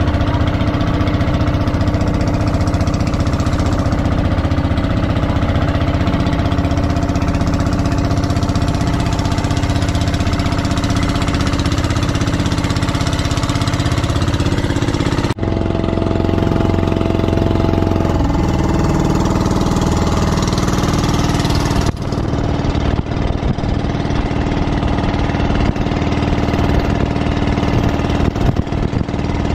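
Engine of a motorized outrigger boat (bangka) running steadily at cruising speed, with water rushing past the hull. About halfway through the sound breaks off for an instant and resumes with a slightly different tone.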